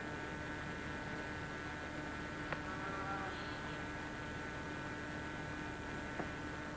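Steady electrical hum and hiss on the recording, with a sharp click about two and a half seconds in and a faint sheep bleat about three seconds in.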